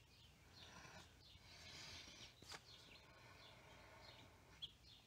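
Near silence: faint bird chirps in the background, with a faint click or two.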